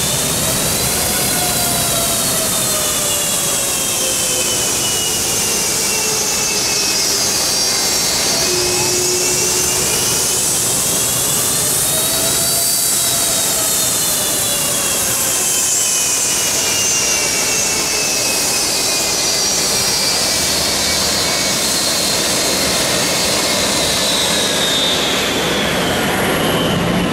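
Steady, loud jet turbine noise with whining tones that slowly rise and fall.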